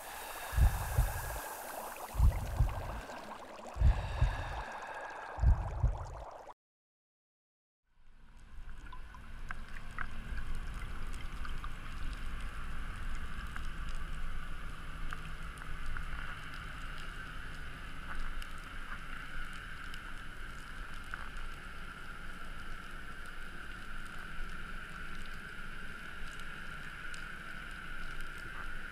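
Deep thumps about every second and a half over bubbling, splashing water, cut off by a moment of silence. Then underwater ambience picked up by a diving camera: a steady hiss and low rumble with a faint held tone and scattered small clicks.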